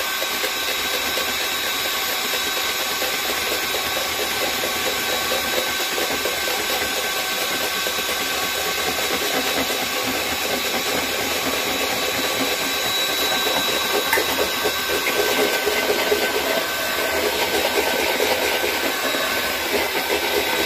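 Electric hand mixer running steadily, its beaters whipping egg yolks in a plastic jug, with a steady motor whine; it gets a little louder about two-thirds of the way through.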